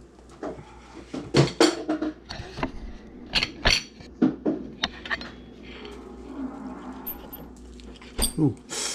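Table knife cutting through a toasted Monte Cristo sandwich, clicking and scraping against a ceramic plate. Near the end the knife screeches on the plate, an ear-piercing squeal.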